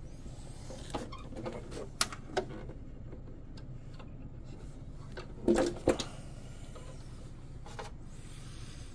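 Light knocks and clicks from hand-bending a stuffing tube and handling the hull, with a louder cluster of knocks about five and a half seconds in, over a steady low hum.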